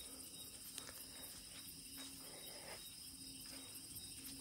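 Night insects, crickets among them, chirring steadily in a high pulsing drone, with a few faint footstep-like taps.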